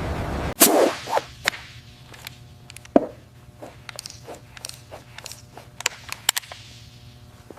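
A steady noisy sound cuts off suddenly about half a second in. Then comes a string of sharp clicks and knocks, the loudest right after the cut-off and about three seconds in, over a low steady hum.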